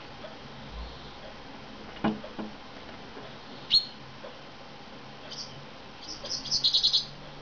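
Chaffinch at a windowsill: two light knocks about two seconds in, one sharp high chirp a little later, then a quick run of high chirps near the end.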